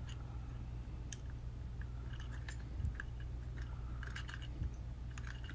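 Plastic parts of a Transformers action figure clicking and rattling as it is handled and shifted toward truck mode: small, scattered clicks with a brief cluster about four seconds in, over a steady low hum.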